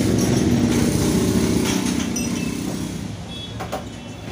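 A motor vehicle's engine running, fading away after about three seconds, with a couple of light clicks near the end.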